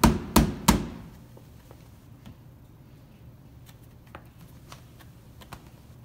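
Hands slapping the bottom of an upturned angel food cake tube pan on a wooden cutting board to loosen the cake: three quick knocks, about three a second, that stop about a second in, then only a few faint light taps.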